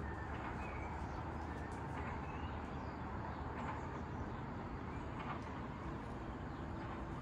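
Outdoor ambience: a steady low background noise with a few short bird chirps and calls scattered through it.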